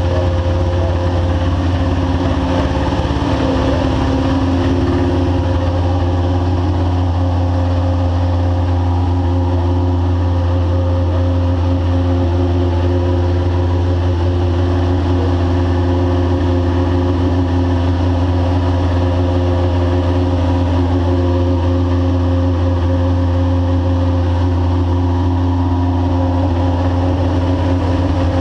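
Pescarolo LMP1 prototype race car's engine idling steadily, a deep low hum with even, unchanging tones and no revving.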